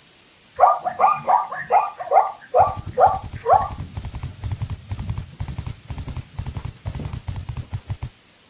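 An animal calling: a quick run of about eight short barking calls, each dropping in pitch, followed by a low, rapidly pulsing rumbling grunt that lasts several seconds.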